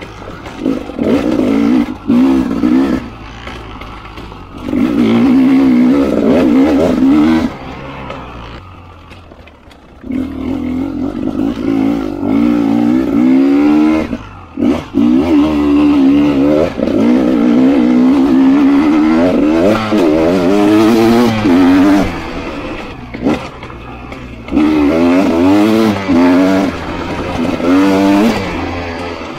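300 RR two-stroke enduro motorcycle being ridden off-road, its engine revving up and down in repeated bursts of throttle with the pitch rising and falling, dropping back to a quieter run between bursts.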